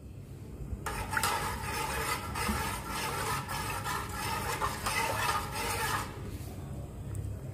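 A metal spoon stirring coconut milk in an aluminium pot, scraping and swishing against the pot for about five seconds, starting about a second in.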